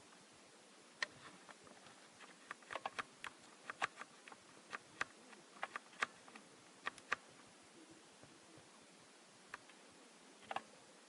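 Irregular light clicks and taps, some in quick clusters, over a faint steady hiss.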